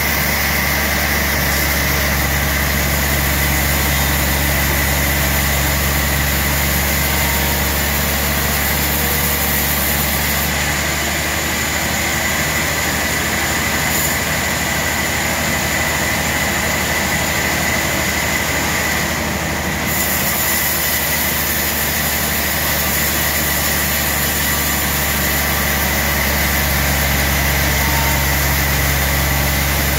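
Large band sawmill running steadily as its blade saws through a big log: a constant low motor hum under a steady high-pitched whine and sawing noise.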